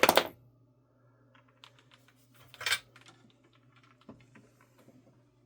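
Small hard parts and tools clicking and clattering as they are handled on a workbench: a sharp rattle at the start, a run of light clicks, then a second clatter about two and a half seconds in, over a faint steady hum.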